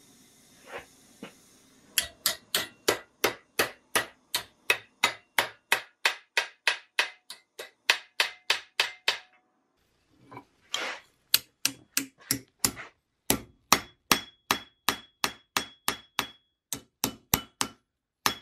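Blacksmith's hand hammer striking a torch-heated iron strip on an anvil, folding it over on itself for a trigger guard tail. The blows are sharp and regular, about three a second, in two long runs with a short pause about halfway through. The later blows leave a ringing tone from the anvil.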